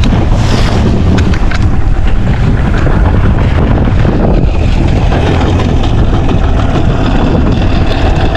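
Wind buffeting the microphone on a boat at open sea, a loud, steady rumble with water and hull noise underneath.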